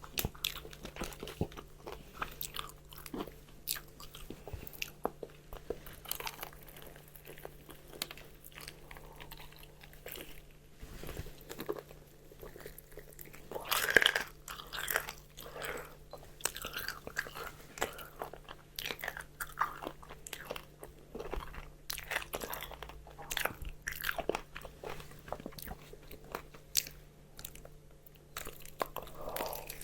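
Crispy fried chicken being bitten and chewed close to the microphone: repeated crunching and crackling of the fried coating, with the loudest bite about halfway through.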